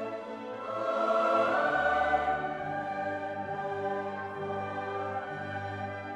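Background music of slow, sustained choral and orchestral chords, the harmony shifting about a second and a half in.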